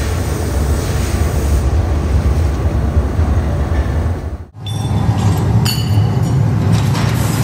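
Steady, loud low rumble of a foundry furnace's forced-air burner running. The sound cuts out abruptly about four and a half seconds in, then resumes unchanged with a few faint metallic ticks.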